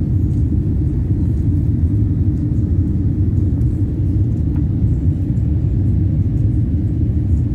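Airliner cabin noise in flight: a steady low rumble of engines and airflow heard from inside the passenger cabin.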